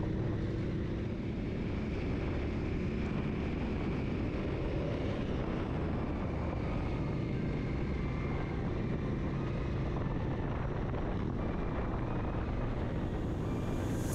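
Honda Africa Twin CRF1000 motorcycle under way at a steady pace: its parallel-twin engine running, mixed with road noise, at an even level with no change in pitch.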